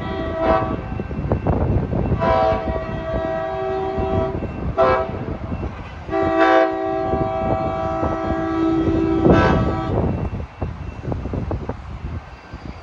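Amtrak train's multi-tone air horn sounding a chord in four blasts: short, long, short, then a long final blast that ends about three-quarters of the way through. Underneath, the train rumbles steadily as it pulls away.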